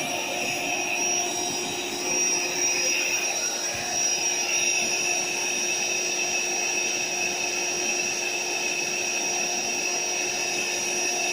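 An AeroBed Deluxe Raised air mattress's built-in electric air pump running steadily with an even whine, inflating the mattress.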